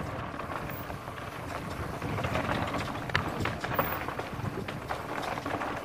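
Mountain bike descending a rough dirt trail at speed: a steady rumble of tyres over the ground, broken by irregular sharp knocks and rattles from the bike over bumps.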